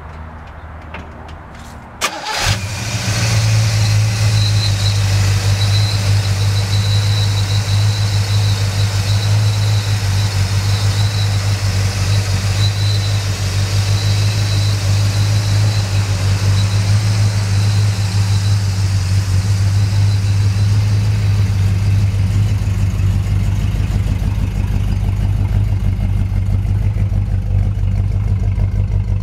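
Pontiac 400 V8 with Tri-Power triple carburettors starting about two seconds in with a sharp crack, then running at a loud, steady idle.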